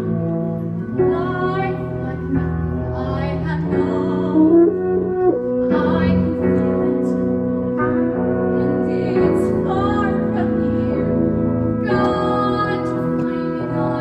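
Live musical-theatre pit band playing a slow passage: keyboard chords with sustained notes held for a second or two, changing chord every so often.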